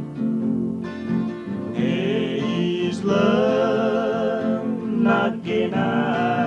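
Background gospel song: acoustic guitar accompaniment, with a singing voice coming in about two seconds in and holding wavering notes.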